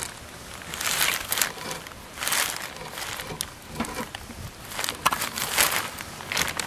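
Clear plastic bag crinkling and rustling in irregular bursts.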